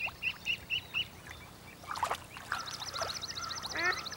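Three-day-old mallard ducklings peeping: a run of short high peeps in the first second, then a faster, higher twitter from about two and a half seconds in, with a few falling calls near the end.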